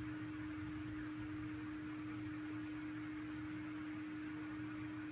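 Steady hum with a single constant tone over a low rumble and faint hiss, unchanging throughout; no distinct event.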